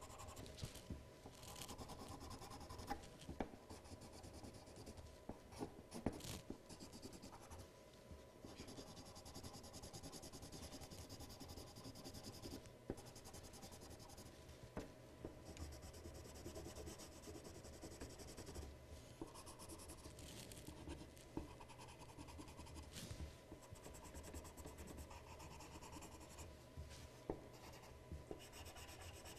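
Coloured pencil scratching faintly across paper as a drawing is shaded in, with small ticks here and there.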